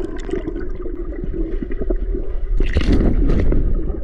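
Underwater in a swimming pool: muffled rumble and gurgling of air bubbles as a swimmer blows out at close range, with a louder rush about three seconds in.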